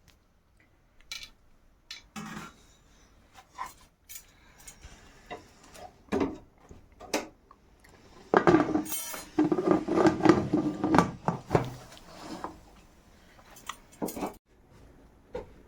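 Metal kitchen utensils and pots clinking and clattering in scattered knocks, with a denser run of clanking about eight seconds in that lasts several seconds.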